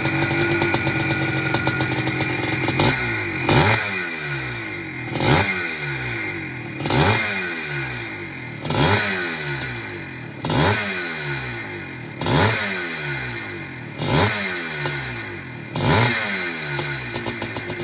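1981 Maico 490 Mega 2 single-cylinder two-stroke motocross engine idling, then blipped on the throttle eight times, about one every two seconds, each rev rising sharply and falling back to idle.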